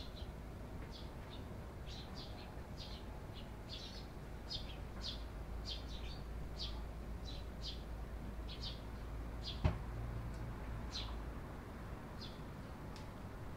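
Eurasian tree sparrows chirping: many short, high chirps, irregular, about one or two a second. A single sharp knock comes about ten seconds in.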